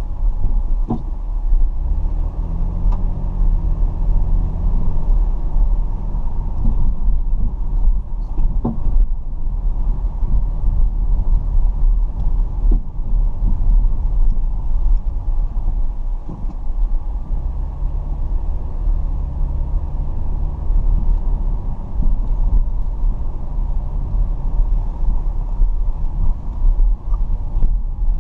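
Car driving, a steady low rumble of engine and road, with the engine note coming up twice, a few seconds in and again past midway.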